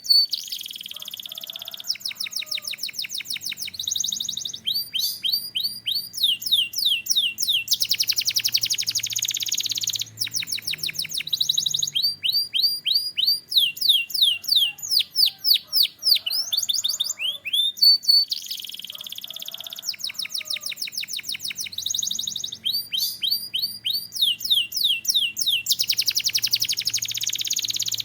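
Domestic canary singing a long, continuous song made of runs of rapidly repeated down-slurred whistled notes, each run lasting a second or two before the next begins, with a fast rattling trill about a third of the way through and again near the end.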